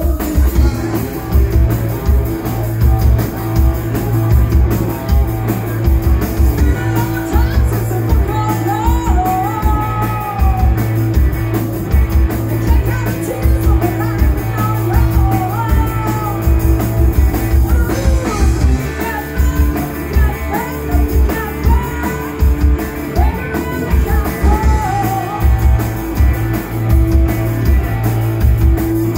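Rock band playing live: a singer over electric guitars, bass guitar and a steady kick-drum beat.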